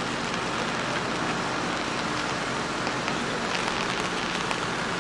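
Steady rain falling on wet pavement and floodwater, with a few sharper drop ticks around the middle. A low, steady engine hum sits underneath, which fits the backhoe loader's diesel engine running.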